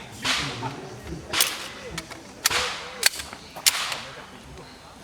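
About five handgun shots fired at an uneven pace over roughly four seconds, each a sharp crack with a short echoing tail.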